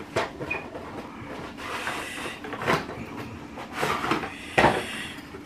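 A cardboard box and the plastic N-gauge viaduct pieces inside it being handled: a short rustle and scrape, then several sharp clicks and knocks, the loudest near the end.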